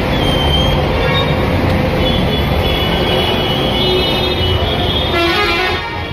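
Busy street traffic: a steady din of engines and tyres, with vehicle horns sounding a few times and a longer horn near the end.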